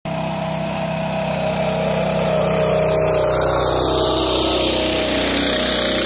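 Harbor Freight Predator 212 single-cylinder engine in an old Farmall tractor running steadily under load while towing a heavy trailer of round hay bales, getting a little louder around the middle as the tractor passes.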